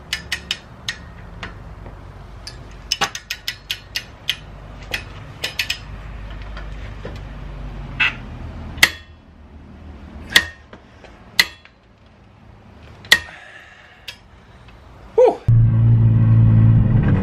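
Long-handled wrench ratcheting a 32 mm socket on a Nissan 350Z's rear axle nut, torqued to 177 ft-lb: a few quick runs of metal clicks, then single sharp ringing clicks a second or two apart. About 15 s in, a steady low drone of the car's cabin while it is driving takes over.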